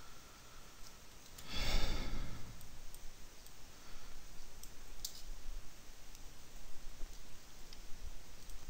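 A person breathing out close to the microphone, a burst of just under a second about two seconds in, and a few light computer mouse clicks.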